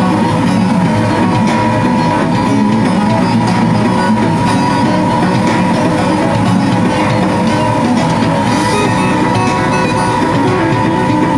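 Background music with guitar, playing steadily at full level.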